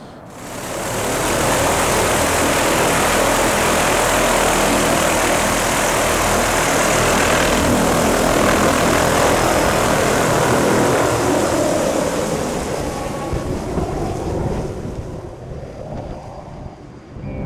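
Helicopter running loud and close with a steady rotor and engine noise, then flying away, its sound bending in pitch and fading over the last few seconds.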